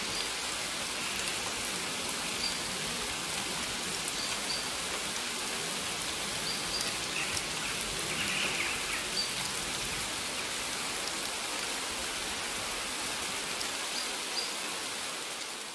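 Waterfall rushing steadily, with short bird chirps now and then. It fades out at the end.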